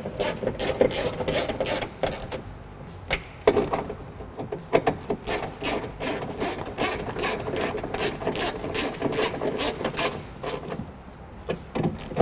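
Hand ratchet with an extension clicking in runs of quick clicks, with short pauses, as the window regulator's mounting bolts are tightened snug.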